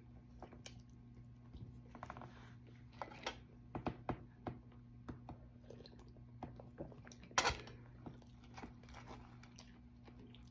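Quiet eating sounds: hands tearing and handling a soft bread roll, with soft clicks, rustles and chewing over a steady low hum. One brief, louder noise comes about seven and a half seconds in, just after a sip from a coffee mug.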